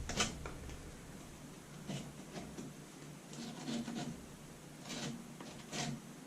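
A rag wiping and rubbing around a toilet flange, a series of short scuffing strokes spaced irregularly.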